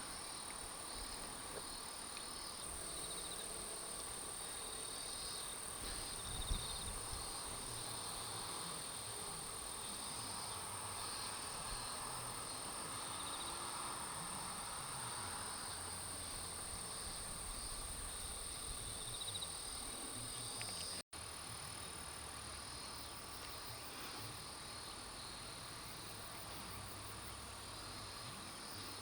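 A steady insect chorus, with an unbroken high-pitched trill over a fainter, lower chirring. There is a brief low bump about six seconds in, and the sound drops out for an instant about two-thirds of the way through.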